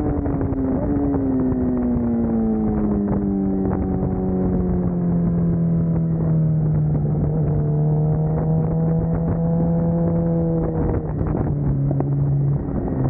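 Sport bike engine heard from onboard at track speed, its revs falling steadily over the first few seconds as the bike slows into a corner, then holding roughly level through the turn, with a couple of small drops in pitch near the end.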